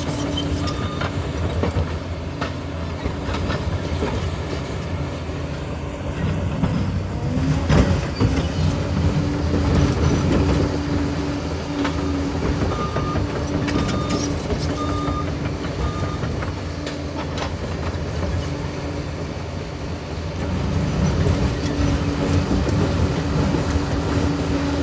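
Liebherr PR 746 crawler dozer working, its diesel engine running steadily with the tracks rattling. Its reversing alarm gives short beeps about once a second near the start and again around halfway.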